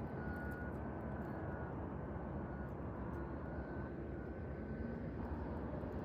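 Steady low background rumble, even throughout, with a faint thin high tone over it.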